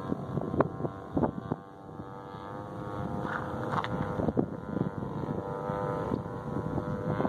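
NGH 35cc single-cylinder two-stroke gas engine of a giant-scale Piper Cub RC model droning steadily in flight at a fairly constant pitch. It fades about two seconds in, then grows louder again as the plane comes back round. Wind buffets the microphone with scattered gusts and thumps.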